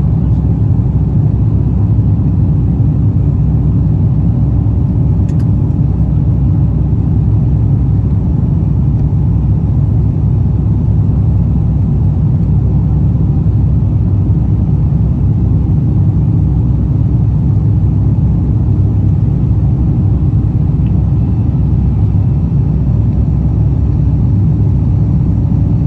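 Steady low rumble of an Airbus A350-1000's Rolls-Royce Trent XWB engines and rushing air, heard inside the cabin during the climb after takeoff.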